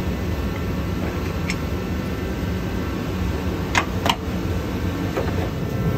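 Steady low background hum, with a ratchet wrench working a 15 mm engine-mount bolt: a faint click about a second and a half in, then two sharp metallic clicks close together about four seconds in.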